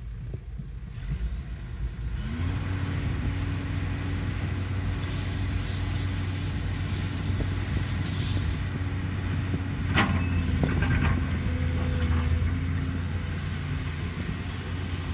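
Caterpillar excavator's diesel engine running, picking up speed about two seconds in and then holding steady. A hiss sounds for several seconds midway, and a sharp clank comes about ten seconds in.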